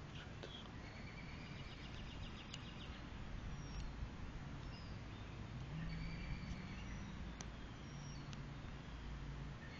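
Woodland ambience: scattered short bird calls and a quick chirping trill about two seconds in, over a steady background hiss, with a faint low hum that comes and goes.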